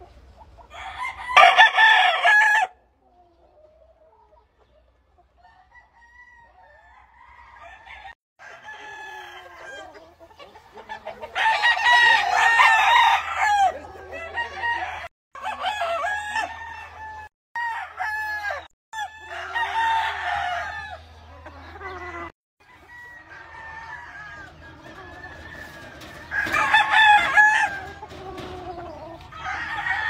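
Roosters crowing, four loud crows spread across the stretch with another starting at the very end, and quieter clucking from the chickens in between.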